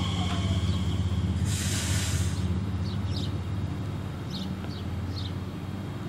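Talent 2 electric multiple unit braking to a stop, its electric drive giving a low steady hum that slowly fades. A short burst of air hiss comes about a second and a half in. Birds chirp in the second half.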